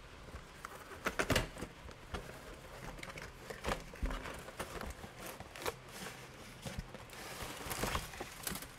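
A cardboard box being opened by hand: the lid slid off and the inner plastic tray of model sprues lifted out, with scattered scrapes, taps and plastic-bag crinkling.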